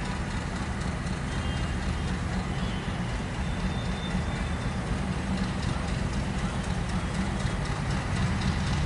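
Diesel locomotive engine running with a steady low rumble as it slowly pulls a passenger train, growing a little louder near the end as it approaches.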